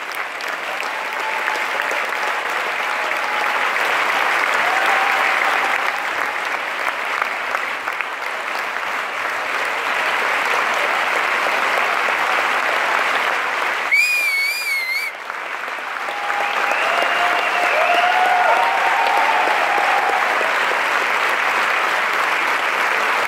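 Large theatre audience giving a standing ovation: dense, sustained clapping with occasional voices calling out. About fourteen seconds in, a brief warbling high tone sounds as the clapping briefly dips.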